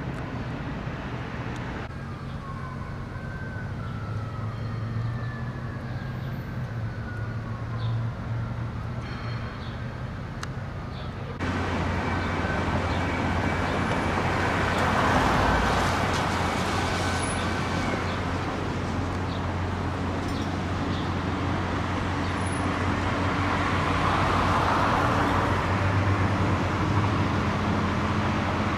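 Steady road traffic noise with vehicle engines running. A faint falling whine comes a few seconds in, and the noise becomes louder and fuller all at once about eleven seconds in.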